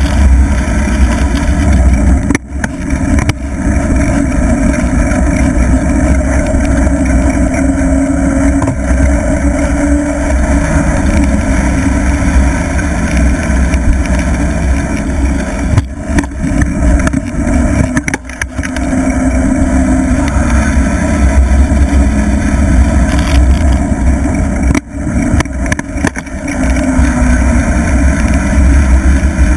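Heavy wind rumble and buffeting on the microphone of a camera moving fast downhill, with a steady rush of air and road noise. It dips briefly a few times, about two seconds in, around the middle and near the end.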